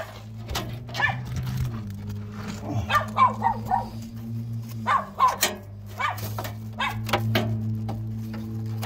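A dog barking repeatedly in short, irregular bouts. A steady low hum runs underneath.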